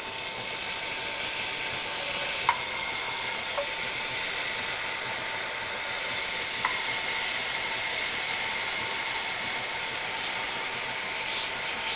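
A thin film of water on a metal mason jar lid sizzling as it boils over a small HHO (oxyhydrogen) torch flame: a steady hiss with a couple of faint ticks.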